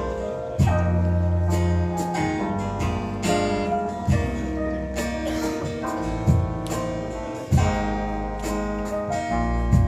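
Live band playing an instrumental break with no vocals: guitar carrying the tune over bass and drums, with a drum hit every second or two.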